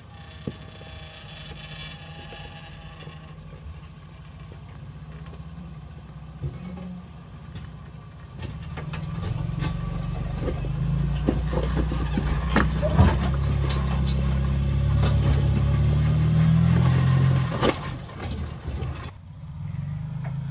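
Third-generation Toyota 4Runner engine running at low revs as the truck crawls over a rock ledge. The engine grows louder from about eight seconds in as it works up the rocks, with sharp knocks and crunches of tyres on rock. It drops off briefly near the end.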